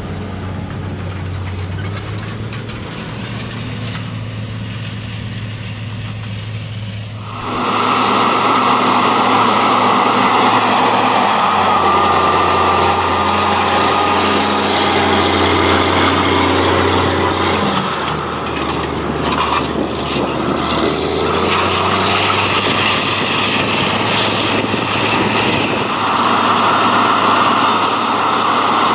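Agcostar 8360 tractor's Cummins 14-litre diesel working under load while pulling a wide vertical tillage tool. It is a steady, quieter low hum at first, then about seven seconds in it becomes much louder and fuller as the tractor runs close by.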